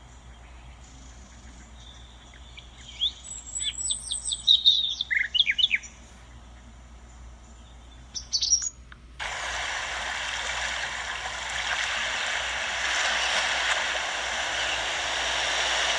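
Recorded birdsong alarm sound: a run of short chirps and whistles about three to six seconds in and another brief burst near eight and a half seconds, over faint background hiss. At about nine seconds it cuts abruptly to a different track, an even, steady rushing noise.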